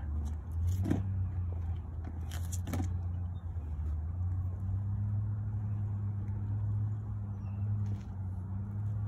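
Low steady hum of an idling vehicle engine, with a few brief sharp clicks in the first few seconds.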